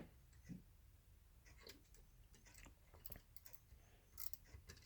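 Faint, irregular metal clicks and ticks from a flex-head ratcheting combination wrench being handled and worked on a bolt.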